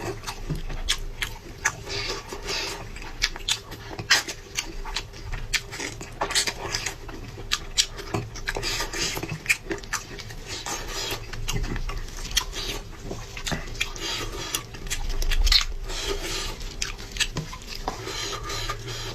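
Close-miked chewing and mouth sounds of someone eating skate: many short, irregular wet clicks and smacks.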